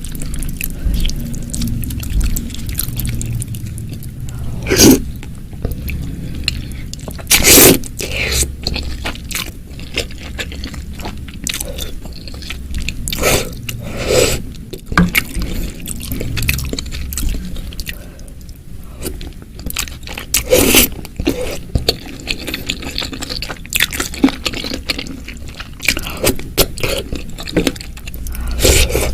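Close-miked eating of spicy bakso seblak (meatball soup with chicken feet and crackers): irregular chewing, biting and crunching with wet mouth sounds, and a handful of louder brief bursts.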